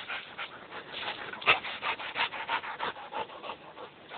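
A Rottweiler tugging at a tree branch: wood and twigs rubbing and scraping in quick repeated strokes, with one sharp snap about a second and a half in.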